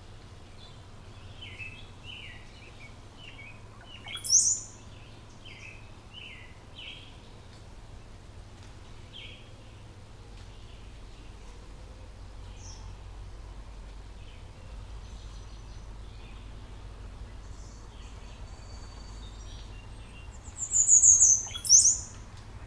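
Songbirds chirping: a quick run of short falling chirps over the first several seconds, a loud, high-pitched call about four seconds in, then sparser chirps and two loud high calls near the end. A faint steady low hum lies beneath.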